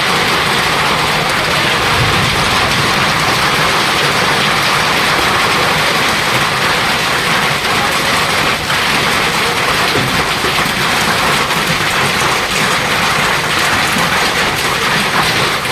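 Heavy hail falling: a dense, steady clatter of many hailstones striking.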